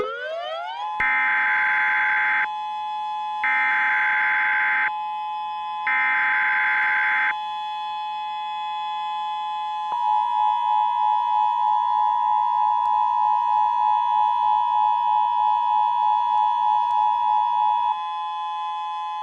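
Synthesized emergency alert tones. A siren tone rises at the start and settles into a steady two-tone alert signal. Three short bursts of buzzing data noise, like EAS header bursts, sound over the signal, and from about ten seconds in a louder siren tone pulses about twice a second for some eight seconds.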